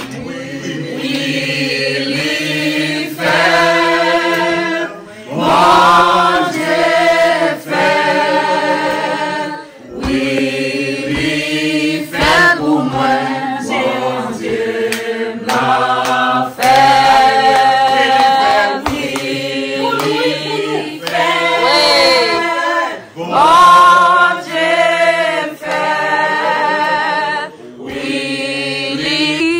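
Choir singing, several voices in continuous vocal music with only short breaks.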